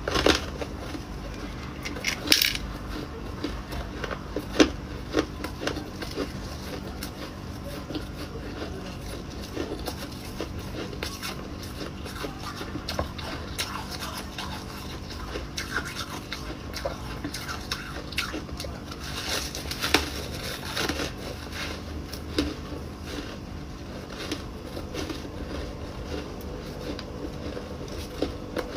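Ice being bitten and chewed close to the microphone: an irregular run of sharp crunches and crackles, with louder bites about 2, 5 and 20 seconds in.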